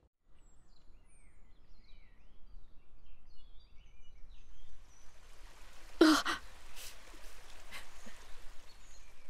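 A woman's loud, breathy sigh of relief about six seconds in, over soft outdoor ambience. Faint bird chirps are heard in the first few seconds.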